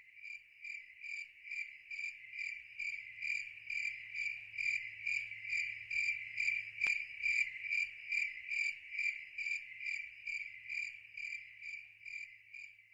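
A cricket chirping steadily, about two to three chirps a second, fading in and then fading out again. A single faint click about seven seconds in.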